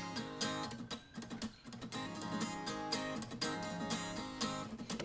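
Background music: a strummed guitar playing steady chords.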